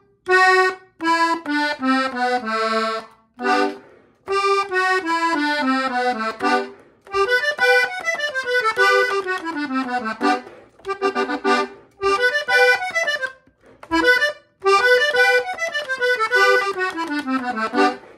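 Hohner diatonic button accordion tuned in G (sol) playing a decorative run of quick notes, phrased in short bursts, several stepping down in pitch, with brief pauses between phrases.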